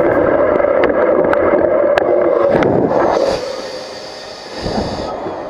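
Mountain bike rolling fast downhill over grass: a loud, steady hum from the knobby tyres, with rattling and sharp clicks. About three seconds in it drops to a quieter, high hiss as the bike slows on a gravel track.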